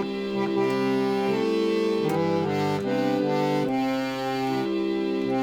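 Electric chord organ playing sustained reedy chords, the notes moving to new chords every second or so.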